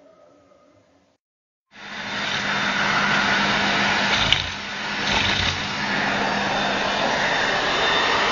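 Vacuum cleaner running steadily, starting abruptly about two seconds in after a short silence, with a click and a brief dip in the sound about halfway through.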